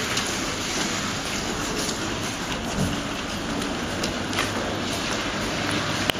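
Steady, even outdoor hiss with no distinct events, with a brief faint low sound about halfway through.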